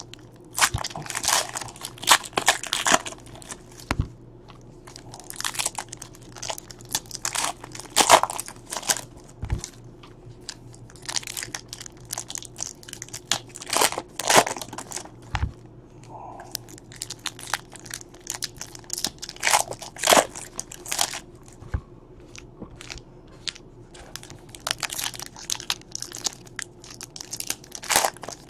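Shiny foil wrappers of Donruss baseball card packs being torn open and crinkled by hand, one pack after another, in irregular crackly bursts.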